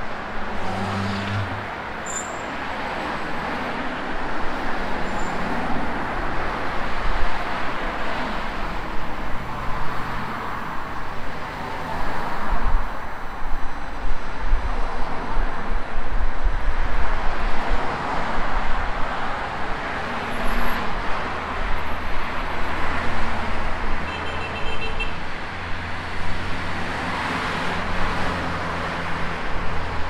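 Road traffic: cars passing one after another, the noise rising and fading with each one, with a low engine hum in the last few seconds.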